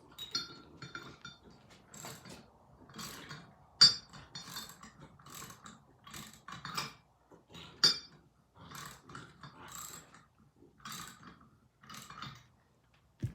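A 7/8 bolt being worked into a cast-iron vise with a hand wrench: irregular metallic clicks and scrapes about once a second, with two sharper clacks about four and eight seconds in.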